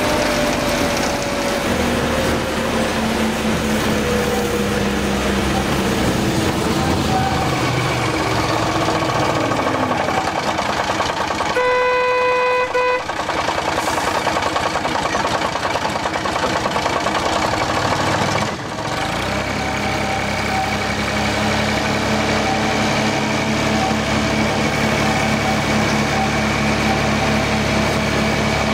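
Hunslet narrow-gauge diesel locomotive running, its engine note falling over the first few seconds as it eases off. About twelve seconds in it gives one horn toot lasting about a second, then the engine runs on steadily.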